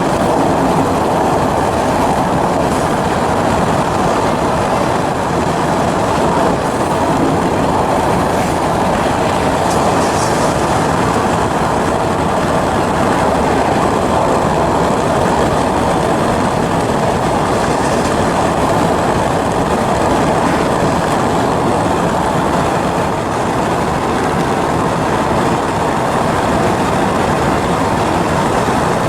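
A freight train rolling past on the rails: a loud, steady rumble and rattle of its cars.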